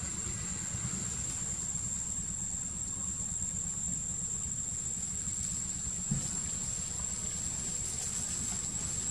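Insects trilling steadily at one high pitch, over a low constant rumble, with a faint knock about six seconds in.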